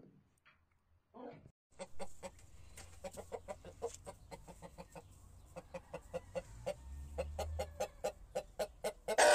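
Shamo gamecock clucking: a quick, steady run of short repeated clucks, with one louder, longer call near the end.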